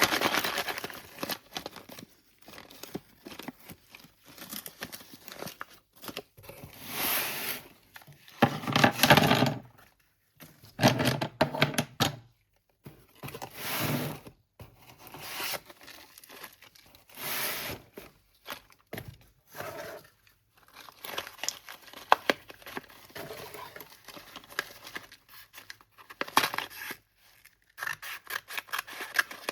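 Slate pencil packaging being torn open and crinkled by hand, in a string of short tearing bursts with small clicks and taps between them.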